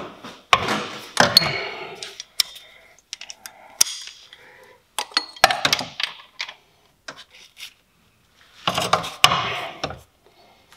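Breaker bar and socket clanking and scraping against metal while being fitted onto a very tight 13 mm belt-tensioner bolt and worked on. Sharp clicks and clanks come at intervals, with bursts of rattling between them.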